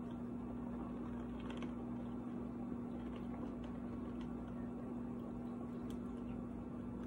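Steady hum of a box fan running, with a few faint clicks and crinkles from a plastic water bottle as someone drinks from it.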